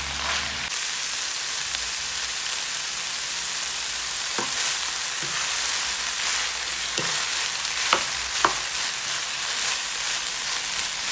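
Sliced mushrooms and ground meat sizzling steadily in a hot frying pan as they are stirred with a wooden spatula, with a few sharp knocks of the spatula against the pan.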